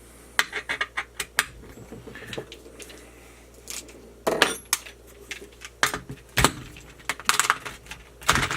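Irregular metallic clinks, taps and knocks of hand tools and screws against an RC truck's chassis during bench work to remove its large bottom screws, in a few quick clusters.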